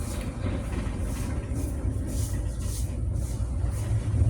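Steady low rumble of a transit mixer truck's diesel engine running as the truck moves into the site.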